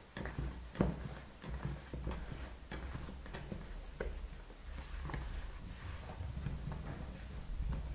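Spatula stirring thick cake batter in a plastic bowl: irregular soft clicks, knocks and scrapes against the bowl, over a low steady hum.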